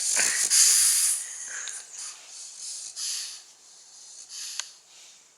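French bulldog snoring: a loud, hissing breath in the first second, then several softer breaths that die away toward the end.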